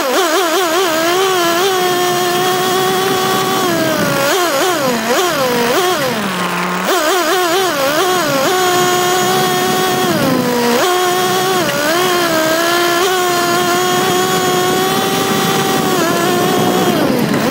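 Nitro RC car's small two-stroke glow engine, heard close up from a camera mounted on the car, running at high revs under throttle. The revs wobble quickly with short throttle blips, hold steady for long stretches, and drop low twice, about six and a half and ten and a half seconds in, before climbing back.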